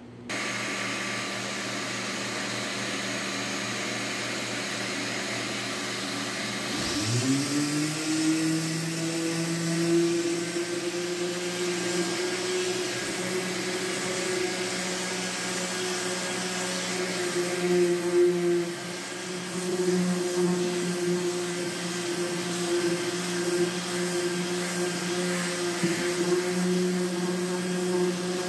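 Corded random orbital sander sanding cured fairing compound on a fibreglass sailboat hull's gel coat. A steady machine hum at first; about seven seconds in the motor spins up with a quick rising whine, then runs at a steady pitch, its loudness wavering as the pad works the patch.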